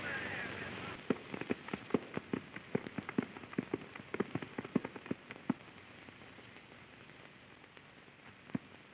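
Horses' hooves clopping on a dirt street: an irregular run of sharp knocks for about four seconds, then a few scattered ones near the end.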